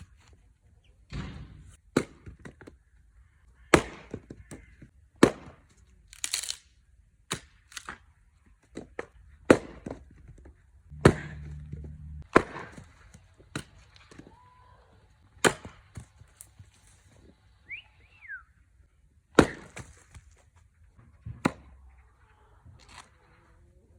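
Axe chopping wood: a dozen or so sharp blows at uneven intervals, with the wood cracking as it splits.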